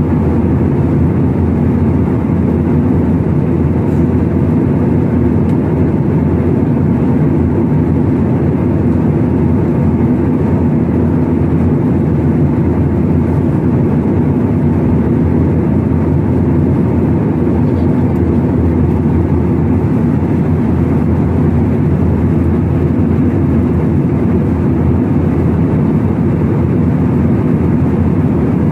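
Jet airliner cabin noise in cruise flight: a steady, loud hum and rush of the engines and airflow, unchanging throughout.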